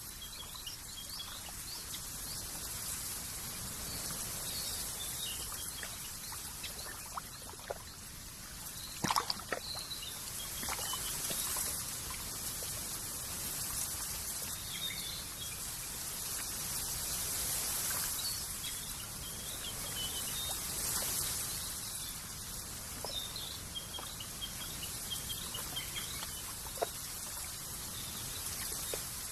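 Nature ambience: steady trickling water with short bird chirps scattered throughout, and a few sharp clicks about nine seconds in.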